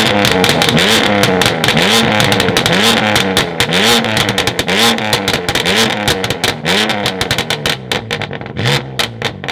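A tuned sports car's engine revved in repeated short blips, about one a second, with the exhaust crackling and popping throughout.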